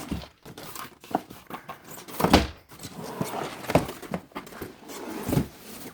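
A cardboard product box and its packaging being handled and opened: irregular knocks, scrapes and rustles, the loudest about two seconds in.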